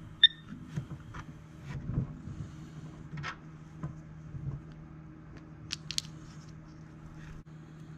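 A short electronic beep about a third of a second in, as a timer is started, followed by scattered light clicks and taps of small RC kit parts being handled over a steady low hum.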